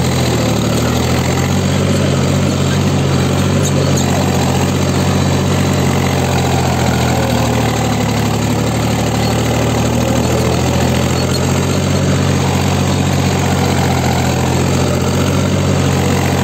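Mahindra 265 DI tractor's three-cylinder diesel engine running steadily at about 2000 rpm in fourth low gear, under load while pulling a nine-tine spring cultivator through the soil.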